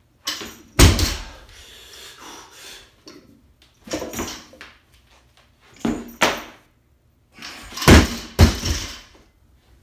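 A barbell loaded with 235 lb of bumper plates hits the floor and its plates rattle: a few heavy thuds with clanking. The loudest come about a second in and twice close together near the end.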